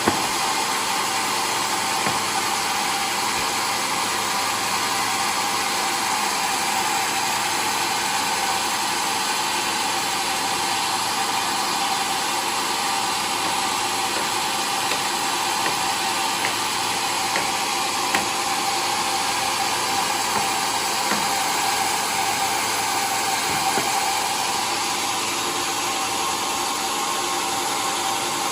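Homemade sawmill running steadily while sawing waru wood into planks: a continuous, even machine noise with a few faint ticks.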